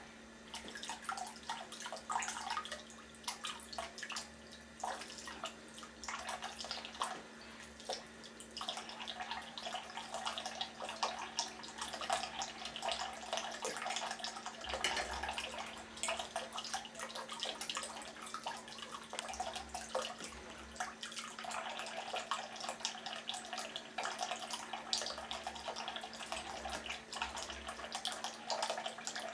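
Thin stream of tap water running from a bathroom sink faucet into the ceramic basin, trickling and splashing unevenly as a cat's paw dips into and breaks the stream.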